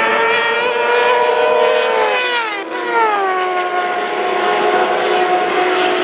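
Racing sidecar outfit at full throttle on the straight, its engine held at high revs, then passing by with the pitch falling about two to three seconds in.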